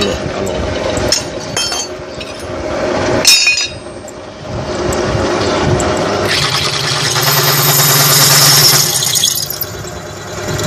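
Low-speed electric drill running a carbide-tipped bit into a stainless steel knife blade, with a sharp clink about three seconds in. From about six seconds the bit cuts into the steel with a loud, high-pitched scraping that stops about a second before the end.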